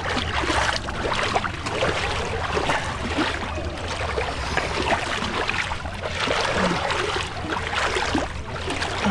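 Muddy water sloshing and splashing as a person wades through it, over a steady low rumble.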